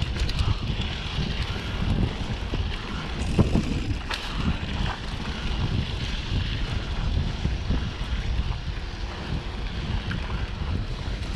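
Wind buffeting the microphone during a mountain bike ride on a dirt trail, steady throughout, with scattered small knocks and rattles from the bike.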